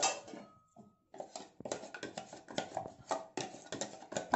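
Rice batter being stirred by hand in a steel bowl and a steel ladle being handled: a run of irregular small clicks and taps, a few a second, starting about a second in.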